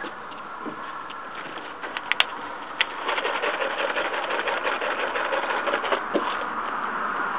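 Ground firework burning and sputtering. A few sharp pops in the first three seconds, then a dense, rapid crackle from about three seconds in that grows a little louder.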